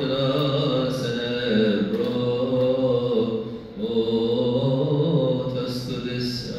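Male voices chanting a Coptic liturgical hymn a cappella in long, slowly bending held notes, with a short breath pause a little past halfway.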